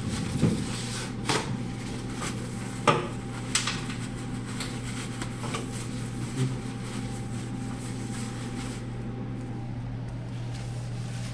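A few sharp metallic clinks and knocks of tools and metal parts being handled while fitting a replacement lithotripter shockwave generator, the loudest about three seconds in, over a steady electrical hum.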